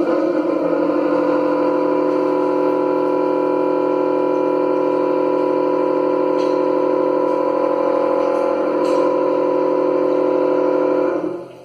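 Partly opened urinal water tap making a steady, loud droning tone with several overtones, the kind of noise such a tap gives when it is opened only a little. The tone falls away just before the end.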